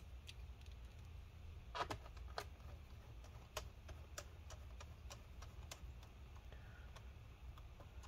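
Faint, irregular light clicks and taps, about a dozen, the loudest about two seconds in, from hands and a small screwdriver working on an HP 15-BS033CL laptop's plastic bottom case.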